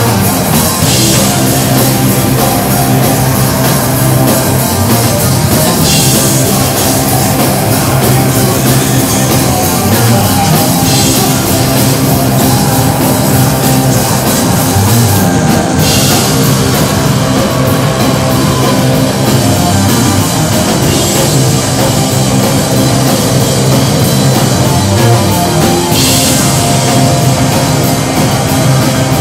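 Live rock band playing loud: electric guitars through amplifiers and a drum kit, with cymbal crashes every few seconds.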